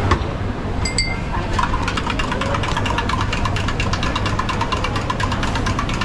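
A metal spoon stirring a drink in a cup, clinking quickly and evenly, about nine times a second for some four seconds, over the steady din of a busy hawker centre. There is a single ringing clink about a second in.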